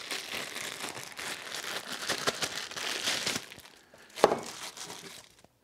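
Crinkling and tearing of the packaging around a new differential pinion bearing as it is unwrapped, with many small clicks and rustles, then one sharp knock about four seconds in.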